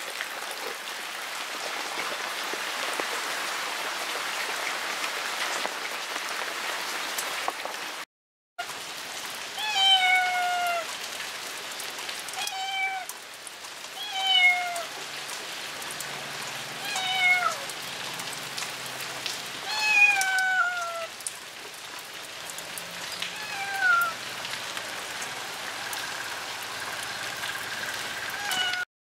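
Steady rain falling. After a brief cut, a cat meows about six times over the rain, each meow falling in pitch, one every two to three seconds.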